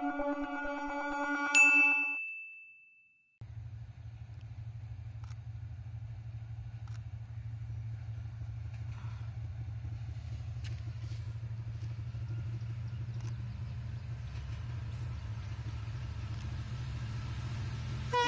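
A short chiming logo jingle fades out in the first two seconds. After a second of silence comes the low, steady drone of a Class M11 diesel-electric locomotive approaching on the line, slowly growing louder.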